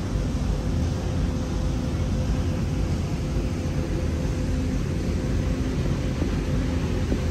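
Steady mechanical hum with an even rushing noise and a faint steady tone underneath, unchanging throughout.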